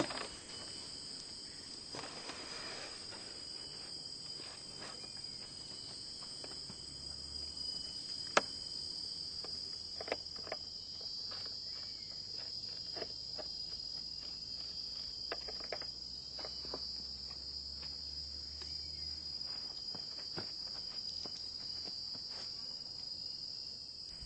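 Outdoor insects chirping in a steady high-pitched drone that swells and fades every few seconds, with a few scattered clicks, the sharpest about eight seconds in.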